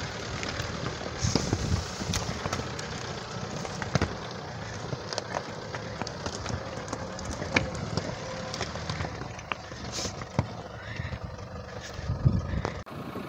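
Toyota Land Cruiser Prado engine running at low speed as the 4x4 crawls over loose rocks, with stones clicking and crunching under the tyres now and then.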